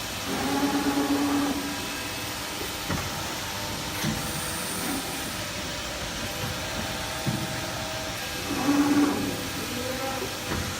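Electro-hydraulic servo press brake running with a steady hum and hiss. It gives two short, louder whines, one about half a second in and one near the end, as the ram strokes.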